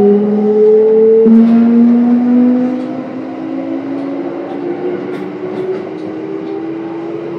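Hitachi GTO-VVVF inverter and traction motors of a Kintetsu 1031 series electric train accelerating: a rising whine of several tones that jumps in pitch about a second in as the inverter changes pulse mode. It becomes quieter after about three seconds while still slowly rising.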